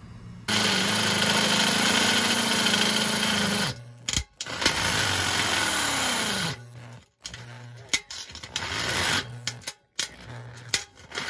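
Electric drill boring through a stainless steel bucket wall in two runs, about three seconds and then two seconds long, the motor's pitch falling toward the end of the second run. Quieter knocks and handling noises follow.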